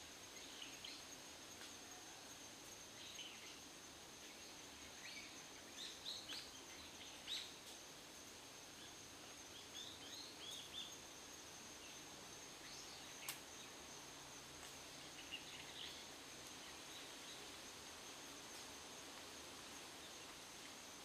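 Faint woodland ambience: an insect holding one steady thin high note throughout, with scattered short bird chirps, most of them in the first half. One sharp click about two-thirds of the way through.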